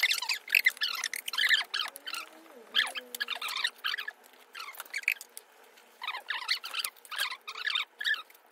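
Cooked crab shells and legs being cracked and pulled apart by gloved hands: an irregular run of crackling snaps and crunches.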